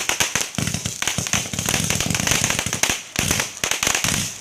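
Fireworks crackling in a dense run of rapid pops and snaps, briefly thinning about three seconds in before picking up again.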